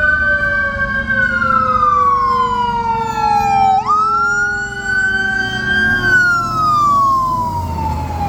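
Emergency vehicle siren on a slow wail: the pitch climbs quickly, then glides slowly down over about three seconds, starting over just before the middle, with a second tone sinking steadily beneath it and a low traffic rumble.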